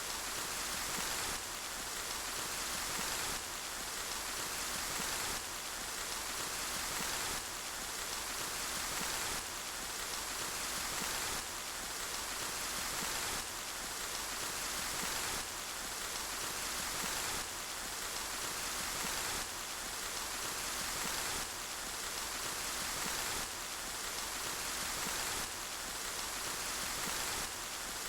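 Steady rain falling, an even hiss of many drops. Its loudness swells slightly and drops back about every two seconds.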